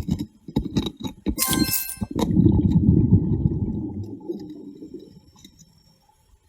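Underwater sounds: several sharp knocks and a bright clink, then a low rush of diver's exhaled bubbles lasting about three seconds and fading away.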